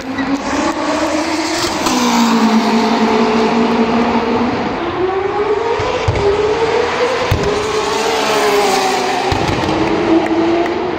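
Drag-race cars' engines running hard at full throttle, the engine pitch rising and falling several times.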